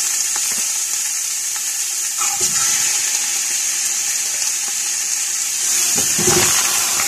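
Chunks of raw goat meat sizzling in hot oil in a large stainless-steel pot as they are added piece by piece: a steady high hiss, swelling about six seconds in as more meat goes in.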